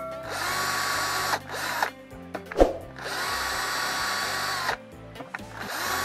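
Electric drill running in two bursts of about a second and a half each, boring the bolt holes of a rubber gasket for the sea-water pump, with the pump cover used as a template.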